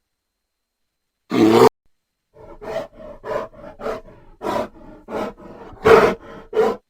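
Bear vocalising: one short, loud call about a second in, then a quick run of a dozen or so shorter calls. The calls are soft at first, and the loudest come near the end.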